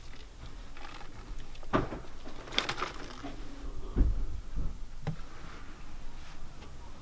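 Someone moving about a small cellar room: a few scattered rustles and light knocks, with a dull thump about four seconds in.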